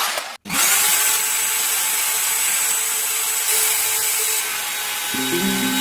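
Bosch plunge router motor starting about half a second in with a short rising whine as it spins up, then running at a steady high speed with a hiss of wood being cut.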